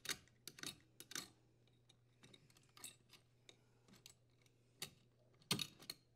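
Scattered faint clicks and light scrapes of hands working the power cord's strain relief fitting loose from the dishwasher's junction box, with a louder cluster of clicks near the end as the fitting is pulled free. A faint low hum runs underneath.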